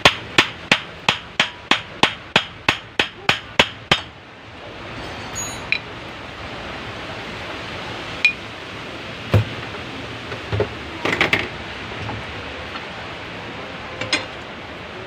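A hammer striking metal in a fast, even series of about a dozen blows, roughly three a second, stopping about four seconds in. A few scattered metallic clinks and knocks from tools follow.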